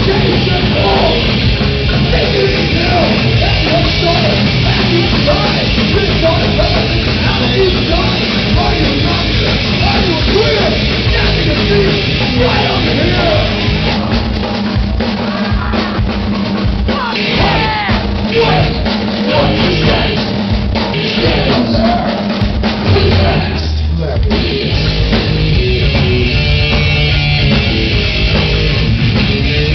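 Thrash-punk band playing live: drum kit, bass guitar and electric guitar at full volume. About halfway through the low end drops out in short stretches, then the full band comes back in.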